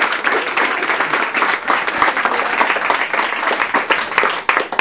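Audience applauding, with the clapping thinning out near the end.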